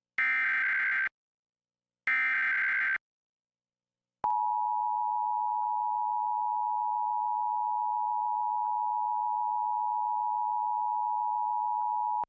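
Emergency Alert System test tones: two one-second bursts of the SAME header's digital data tones, a second apart, with a buzzy, warbling sound. About four seconds in, the EAS two-tone attention signal (853 and 960 Hz sounded together) starts and holds steady for about eight seconds, then stops.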